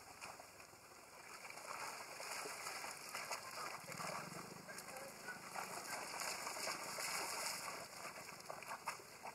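Long-tailed macaques splashing and sloshing in a shallow pond as they play, the splashing growing from about two seconds in and loudest near the end.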